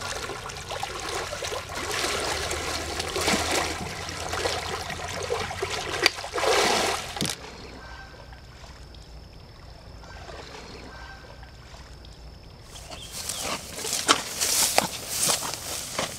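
Water splashing and sloshing as a person wades through a shallow creek. About seven seconds in it drops to a quieter trickle with a faint steady high tone, and a few seconds before the end more splashy, brushing noises come back.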